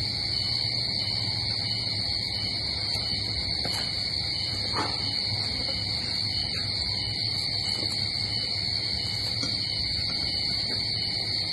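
Steady, high-pitched chorus of insects, with a second, pulsing layer of calls beneath it.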